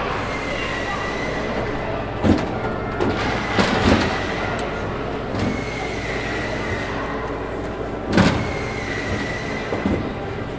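Knocks and clunks of a framed perspex gun-turret cupola being set down and shifted on its metal turret ring, over steady workshop hum. The loudest knock comes about eight seconds in, with others about two and four seconds in, and a faint high whine comes and goes.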